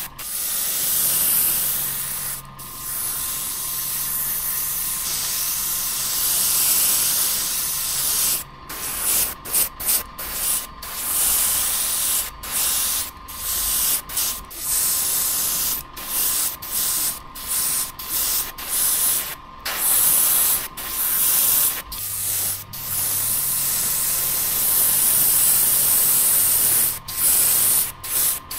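Airbrush spraying paint in a hiss: long steady sprays at the start and again near the end, with many short bursts in between as the trigger is pressed and released. A faint steady hum runs underneath.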